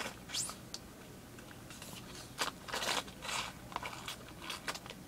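A person drinking: a scattered series of short, faint sipping and gulping sounds.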